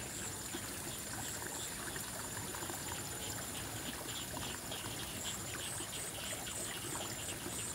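Water trickling steadily through a small irrigation ditch. Over it runs a thin, steady high-pitched tone, and in the second half short high chirps repeat about three times a second.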